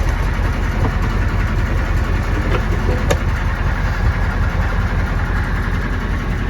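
1993 M998 HMMWV's 6.5-litre naturally aspirated V8 diesel idling steadily with a rapid knock, which the owner takes for a rod bent when the engine hydrolocked on water sucked down the intake. A sharp click about three seconds in.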